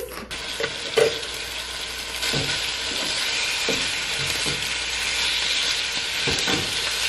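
Raw ground taco meat sizzling as it fries in a hot pan, the sizzle growing louder about two seconds in, with scattered knocks of a spatula against the pan as it is broken up.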